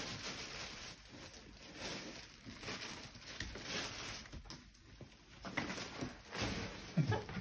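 Faint clicks, knocks and rustling from a baby stroller's frame and handlebar as they are pulled and adjusted by hand.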